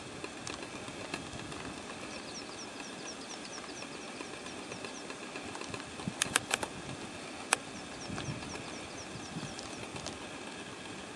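Alpine ibex clashing horns: a quick cluster of four sharp knocks about six seconds in, then a single knock a second later, over a steady outdoor rumble. A run of short high chirps, about four a second, comes and goes twice.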